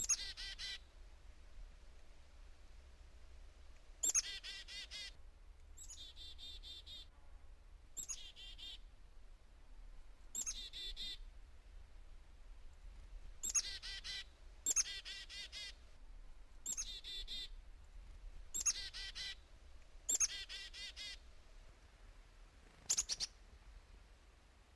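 Black-capped chickadees giving their chick-a-dee call about eleven times, every couple of seconds: a high opening note followed by a quick run of lower 'dee' notes. A couple of the calls are the 'dee' notes alone.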